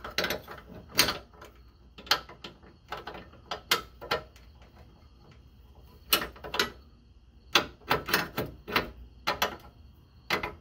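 Irregular metallic clicks and clinks of hand tools: a wrench and a line wrench knocking against the steel fuel filter and its line fitting, then a chrome socket being handled. The clicks come singly and in short clusters with quiet gaps between.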